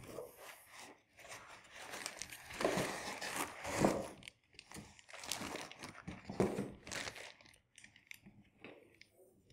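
Laptop packaging being handled: the foam insert scrapes and rubs against the cardboard box as it is lifted out, and the plastic bag around the laptop crinkles. The rustles come in irregular bursts, loudest about four seconds in.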